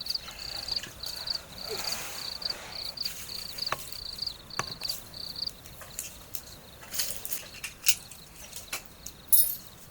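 Cricket chirping in a rapid, even run of short high notes on one pitch, which stops about halfway through. A few sharp clicks or knocks follow in the second half.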